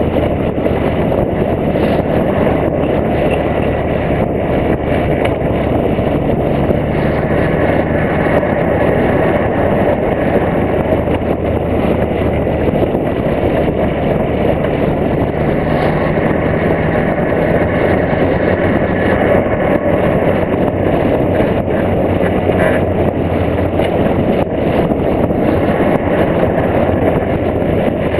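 Volkswagen Golf Mk2's 1.8T turbocharged four-cylinder engine running as the car drives along, heard from on the bonnet above it, mixed with a steady rush of wind and road noise. The engine note shifts a little now and then with the throttle.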